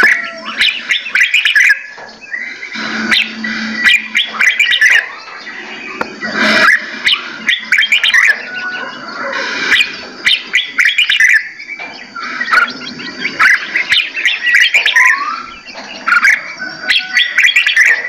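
Several caged songbirds singing and calling together: a dense run of overlapping chirps and whistles with no break.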